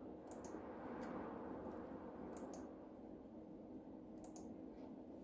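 A few sharp computer mouse clicks, some in quick pairs, over a faint steady hum.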